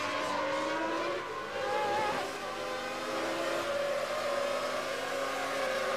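Formula One car's V10 engine (Williams FW19, Renault V10) heard from its onboard camera, running at high revs on a straight, its pitch rising and falling a little as the driver works the throttle.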